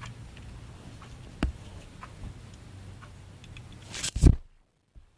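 Plastic K'nex pieces clicking and tapping as they are handled and snapped together, with one sharper click about a second and a half in and a louder clatter about four seconds in, after which the sound cuts out almost completely.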